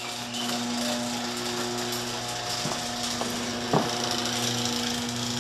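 Electric garage door opener running as the door goes up: a steady motor hum with mechanical running noise, and a couple of short clicks partway through.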